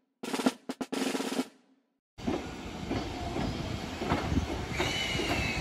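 A snare drum roll, cut into short pieces with silence between them, stops about two seconds in. Then comes the running noise of a Keiyo Line train: a steady rumble with scattered clacks, and a high squeal that glides slightly down near the end.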